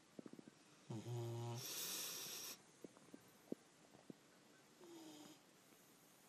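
Sleeping dog snoring: a pitched snore about a second in runs straight into a louder hissing breath, and a softer snore with a falling whistle comes near the end. A few faint clicks fall between the breaths.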